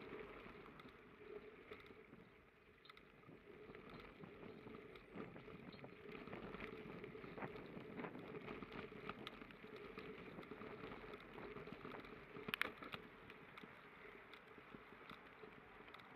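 Bicycle rolling along a crushed-stone path: faint steady tyre noise with light rattling ticks, and one sharper click about twelve and a half seconds in.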